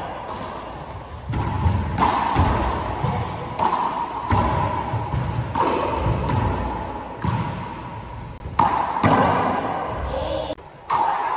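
Handball rally in an enclosed court: the rubber ball smacks off hands, walls and floor about ten times at an uneven pace, each hit ringing and echoing around the walls. A short high squeak comes about five seconds in.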